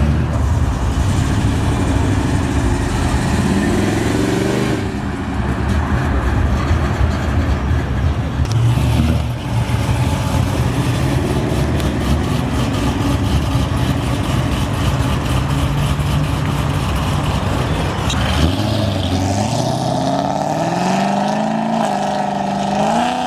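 Loud V8 exhaust rumble from cars pulling away: a classic muscle car, then a C6 Chevrolet Corvette. Near the end one engine revs up hard with a rising pitch, dips and climbs again as it accelerates through the gears.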